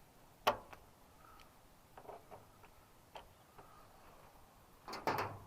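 Light hammer taps on a punch against a snapped-off screw stub: a few sharp, irregularly spaced metal clicks, the loudest about half a second in and a quick cluster near the end. The screw is being tapped sideways to break its rusted bond so it will turn out.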